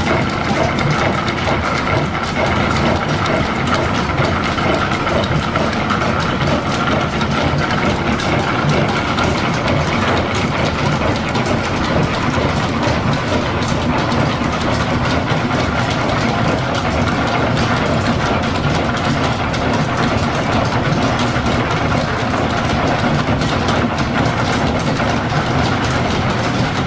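Belt-driven Brown & Sharpe milling machine, powered from a steam-driven line shaft, cutting gear teeth into a blank held on a dividing head. It makes a steady, dense mechanical clatter of belts, pulleys, gearing and cutter, with a faint whine in the first half.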